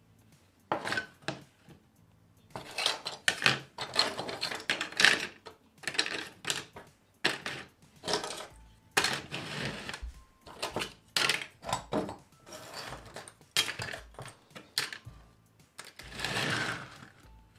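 Small metal and plastic parts of a dismantled diecast model car clattering as they are handled on a wooden table and dropped into a plastic tray, in irregular bursts of rattling clicks.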